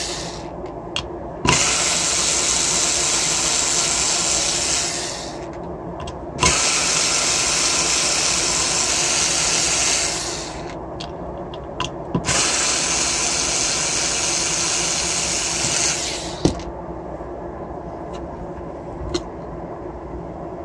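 Cordless electric screwdriver running in three spells of about four seconds each, backing screws out of an aluminium ebike controller case. Between the spells and in the last few seconds there are light clicks and taps.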